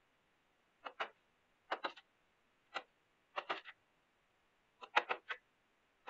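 Wooden mallet striking the handle of a wooden-handled chisel cutting into a spruce beam: sharp knocks in quick clusters of one to four, about five clusters.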